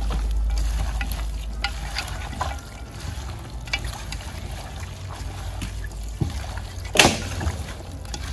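Bare hands squishing and turning raw rooster pieces with seasonings and browning in a stainless steel bowl: wet squelching and rustling with scattered small clicks, and one sharp knock about seven seconds in. A low rumble sits under the first few seconds.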